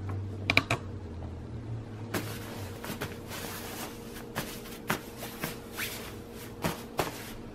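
Rustling and crinkling of a puffer jacket's quilted lining as a hand presses and handles it, with many small crackles, starting about two seconds in and dying down near the end.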